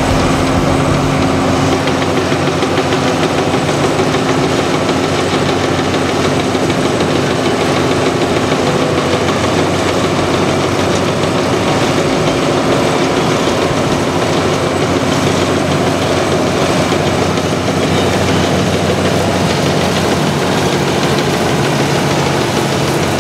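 Engine of an old New Holland Clayson M 103 combine harvester running steadily at one even speed while the machine stands still.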